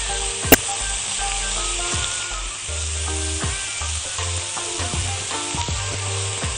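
Sliced onions and pieces of steak sizzling in a hot frying pan as they are stirred with silicone tongs, the onions frying down to caramelize. A sharp click about half a second in, with fainter taps of the tongs against the pan.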